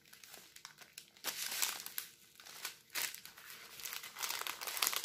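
Clear plastic packaging holding bags of diamond-painting drills crinkling as it is handled, in uneven bursts that start about a second in and grow busier near the end.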